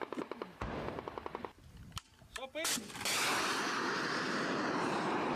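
Launch of an anti-tank guided missile from a tripod-mounted launcher: about three seconds in comes a sudden loud blast that carries straight on into a long steady rush of noise as the missile's motor burns, preceded by a few sharp cracks.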